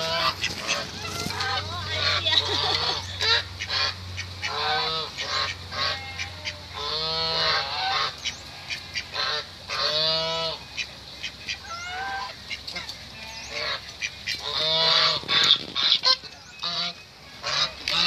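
A group of domestic geese honking over and over in short, harsh calls, several at a time, while they are being fed.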